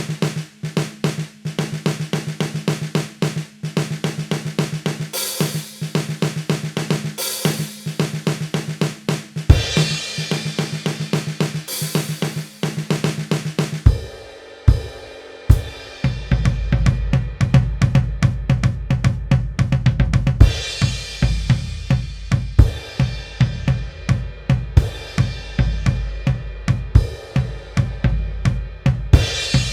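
Drum kit playing a fast pattern of snare and tom strokes with hi-hat and repeated cymbal crashes. About halfway through there is a short break, after which the pattern turns heavier, with bass drum under the snare and toms.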